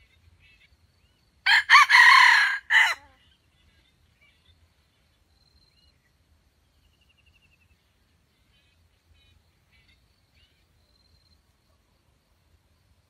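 A jungle fowl rooster crows once, a short crow of about a second and a half broken into three parts, starting about one and a half seconds in. Faint bird chirps sound in the background.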